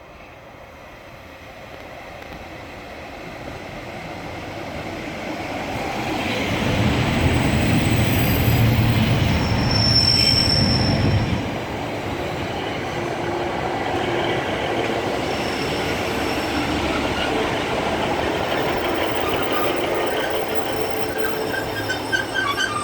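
Class 142 Pacer diesel railbus pulling into a station, growing louder as it approaches, with a low rumble that peaks about halfway through and then falls away. Through the second half, as it slows, high squealing tones from its wheels and brakes ring out over the running sound.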